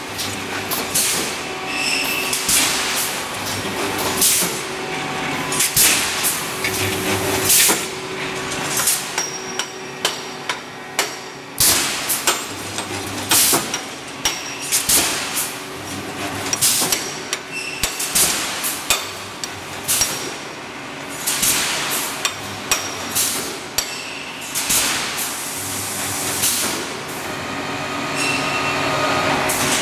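Pneumatic wire mesh welding machine running: its welding heads come down on the wires again and again with metallic clanks and puffs of air hiss, about one every second or two, over a steady machine noise.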